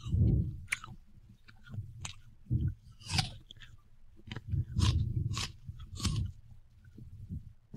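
Sampled excerpt from a 1981 record: irregular crunchy hits, each a low thump with crackling noise above it, coming at uneven intervals with no steady beat.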